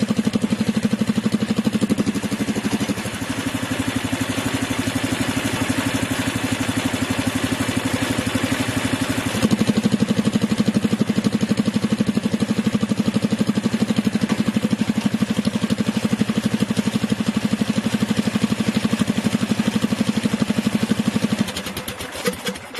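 Predator 420 single-cylinder engine idling with an even, steady beat, then shut off near the end and running down to a stop.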